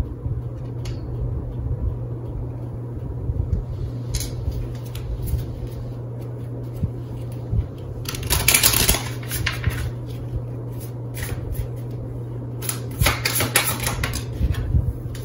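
Oracle cards being shuffled and handled in bursts of quick clicking: a few clicks, then a loud dense run about halfway through and another run near the end, over a steady low hum.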